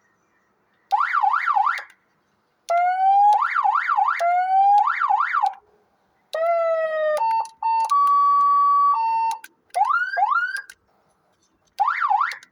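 Electronic vehicle siren run through several of its tones in short bursts with gaps between: a fast up-and-down yelp, slower rising wails broken by yelps, a falling tone, a steady tone that steps between two pitches, then two quick rising whoops, ending on the yelp again.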